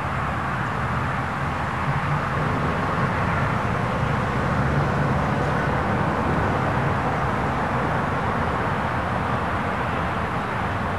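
Steady outdoor background noise: a constant low rumble with a hiss over it and no distinct events, swelling slightly a few seconds in.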